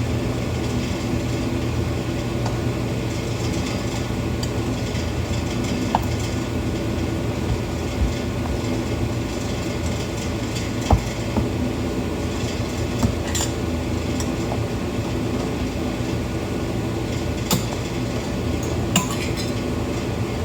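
Small metal clinks and taps, a handful scattered through, from hand tools working a plug out of a snowmobile carburetor. A steady low hum from a running garage furnace lies under them.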